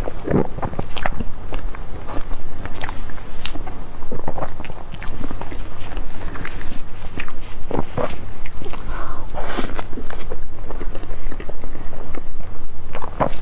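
Mouth sounds of biting and chewing a soft cream-filled bread roll, close to the microphone, with many small clicks throughout.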